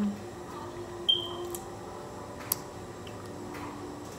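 Snow crab legs being cracked and picked apart by hand: a single sharp snap of shell about two and a half seconds in, after a brief high squeak about a second in.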